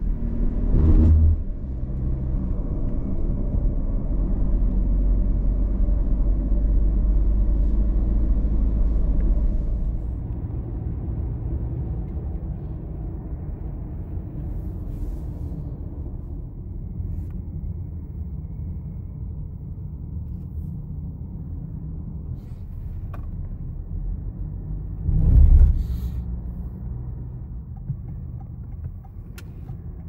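Car cabin noise while driving: a steady low rumble of engine and tyres, heavier for the first ten seconds as the car pulls away from a turn, then settling lower. A short loud thud comes about a second in and another late on.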